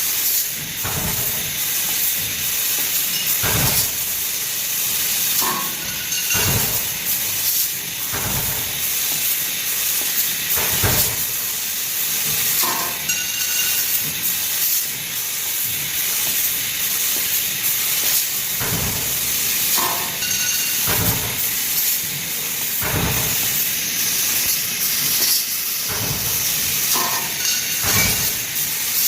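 Laser tube cutting machine at work: a steady hiss with frequent short knocks every second or two, and a brief tone that comes back about every seven seconds.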